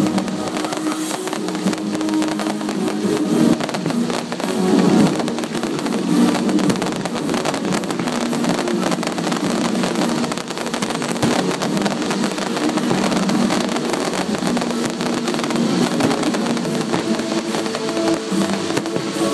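Music with fireworks crackling and popping throughout, many small cracks over sustained musical tones.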